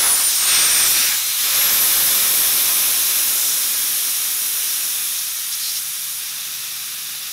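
Compressed air hissing out of a Harbor Freight paint pressure pot through its pop-off valve, held open to vent the pot before the lid is unclamped after a resin cast. The hiss is steady and slowly weakens as the pressure drops, with a thin high whistle falling in pitch in the first second.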